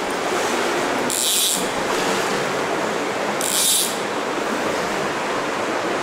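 Creek water running through a corrugated metal culvert: a steady rushing hiss, with two short, sharper hisses about a second in and again about three and a half seconds in.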